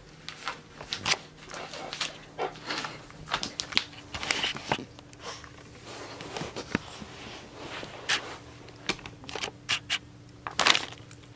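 A plastic beef jerky bag crinkling in irregular crackles as a small Yorkshire terrier moves about with its head stuck inside it. The loudest crinkle comes near the end.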